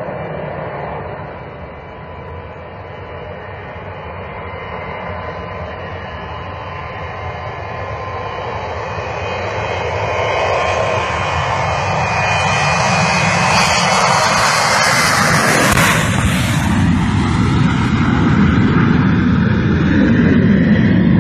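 Boeing 727 cargo jet's engines at takeoff power, growing steadily louder as it approaches, peaking as it passes about three quarters of the way through, then dropping in pitch as it goes by.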